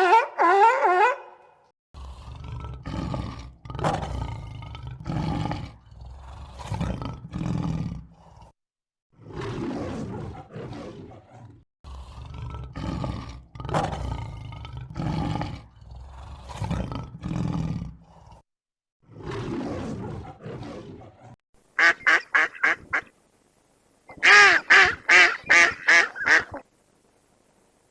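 A run of repeated animal calls, each lasting a second or two with a deep low part, then two bouts of rapid, loud, higher-pitched calls in quick pulses near the end.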